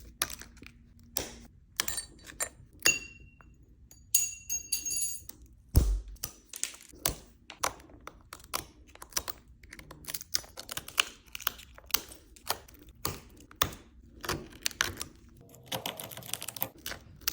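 Cracked glass back panel of an iPhone 12 Pro being chipped and pried off with a metal tool: a dense, irregular run of small clicks, ticks and crunches of breaking glass, with a brief high ringing a few seconds in.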